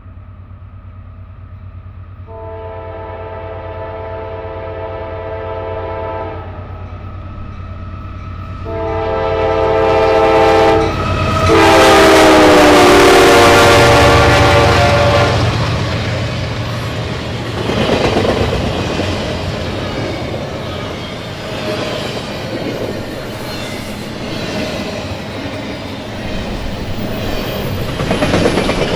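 A Nathan K5LA five-chime air horn on a GE AC4400CW locomotive, with its fourth chime slightly delayed, sounds two blasts as it approaches, the second longer; its chord drops in pitch (Doppler shift) as the locomotive passes. The locomotive's diesel runs loud going by, then the freight cars clatter over the rail joints.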